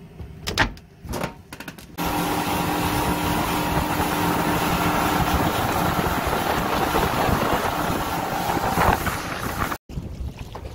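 Suzuki outboard motor driving a small fishing boat at speed: a steady engine drone with a whine on top, mixed with wind and rushing water. It comes in abruptly about two seconds in after a few light knocks, and cuts off sharply near the end.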